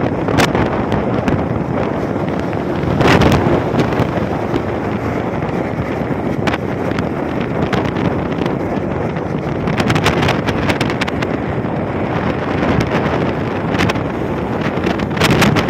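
Wind rushing hard over the microphone of a motorcycle moving at speed, a loud steady roar with repeated sharp gust buffets, the strongest near the end.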